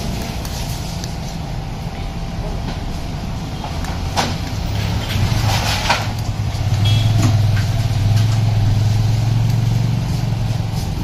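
Steady low motor rumble that grows louder about halfway through and holds for several seconds, with a couple of light clinks of a steel spoon on a plate.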